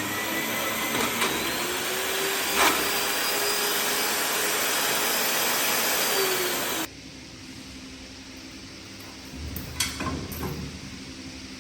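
WELPING HC-1X pipe hole cutting machine running with a loud, steady hiss that cuts off abruptly about seven seconds in, leaving a quieter low hum. A few short knocks follow near the end.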